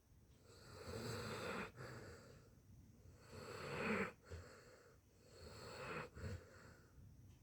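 Snoring: three slow, noisy breaths about two and a half seconds apart, each swelling and then fading.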